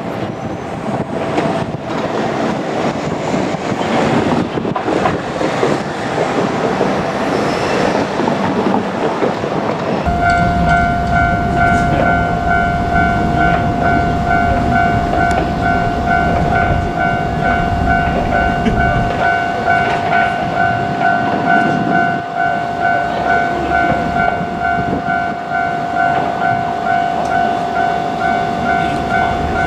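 Japanese level-crossing alarm, which starts about ten seconds in and keeps up a steady, evenly repeating electronic ding, over low rumble; wind noise on the microphone fills the first part.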